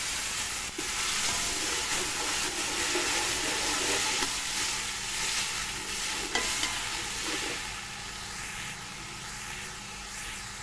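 Onion, tomato and spice base in hot ghee sizzling hard as a splash of water hits the hot fat and turns to steam, while a metal slotted spoon stirs and knocks against the aluminium pot. The sizzle eases off after about eight seconds.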